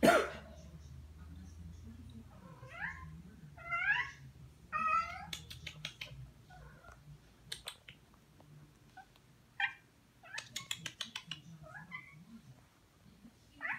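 Domestic cat meowing: three meows in quick succession, each bending up and down in pitch, then a fainter one near the end. A loud sharp sound comes right at the start, and a run of quick light clicks falls between the meows.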